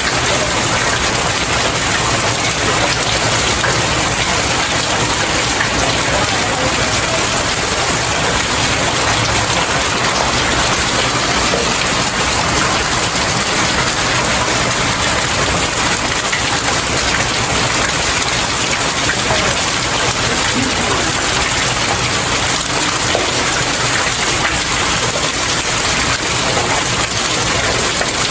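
Steady, heavy rain falling on stairs: a dense, even hiss of spattering water.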